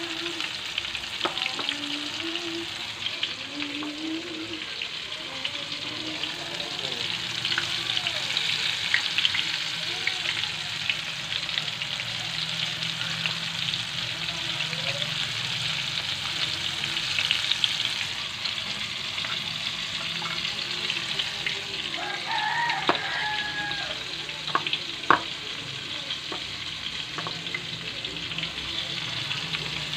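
Floured chicken pieces deep-frying in hot oil in a wok, with a steady sizzle and dense crackle. A single sharp tap sounds near the end.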